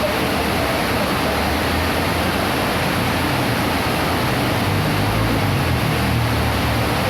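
Heavy rain falling steadily, a dense even hiss, with a low rumble that swells a little about five seconds in.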